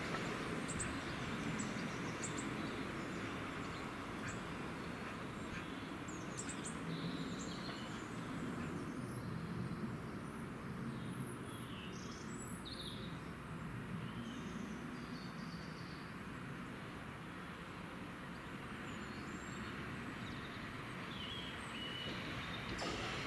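Small birds chirping on and off over a steady low rumble from a Southern Class 377 electric train approaching slowly, which grows a little louder near the end.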